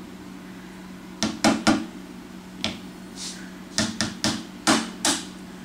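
An egg being knocked against the rim of a mixing bowl to crack it: about nine sharp taps in uneven clusters, three quick ones a little over a second in and a run of five near the end, over a steady low hum.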